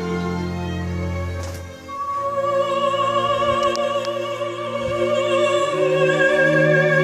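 Operatic soprano with orchestra, a recording played back through small Tannoy Mercury M1 loudspeakers and picked up in the listening room. After a brief dip a couple of seconds in, the voice holds a long note with wide vibrato over sustained strings.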